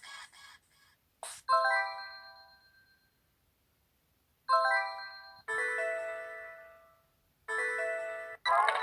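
Built-in system alert jingles of an au W52S Sony Ericsson Walkman phone: four short electronic chimes of a few stepped notes each, separated by brief pauses, with a click just before the first. A fuller, louder tune starts right at the end.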